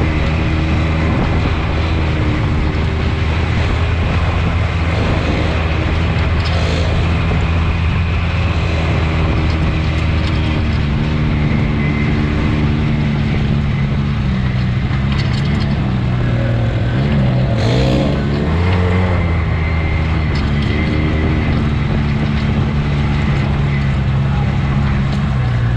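Off-road vehicle's engine running under way at mostly steady revs over a steady hiss. The revs ease off and pick up a few times, with a brief dip and rise about two-thirds of the way through.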